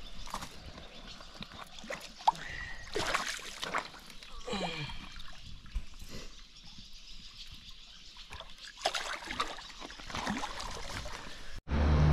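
Irregular splashing and sloshing of shallow water as a freshwater drum (sheepshead) is released by hand at the shoreline. Near the end it cuts off abruptly to a louder steady low hum.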